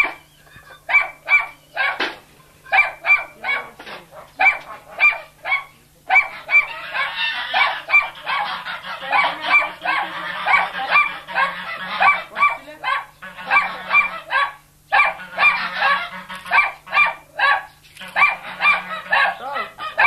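Domestic geese honking over and over, short calls in quick runs with brief pauses between. A rougher background noise is mixed in from about six seconds in until about fifteen.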